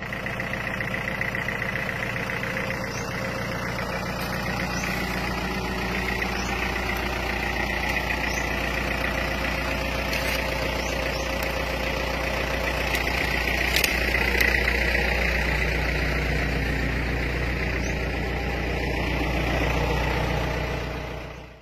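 A large bus's diesel engine idling steadily.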